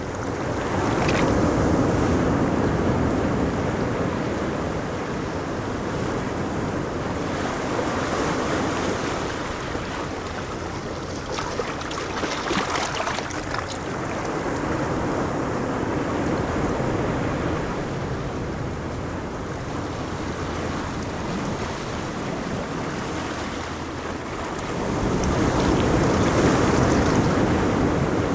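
Ocean waves breaking on a beach, a steady wash of surf that swells and fades several times, with the loudest surge building about 25 seconds in. Wind rumbles on the microphone.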